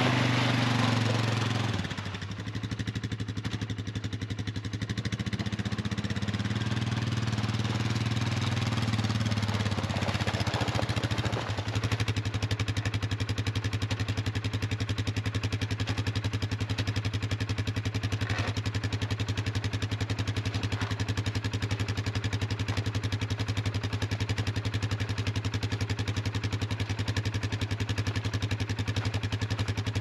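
Engine running steadily, its note shifting for the first several seconds and then settling about 12 seconds in to an even idle with fast, regular firing pulses.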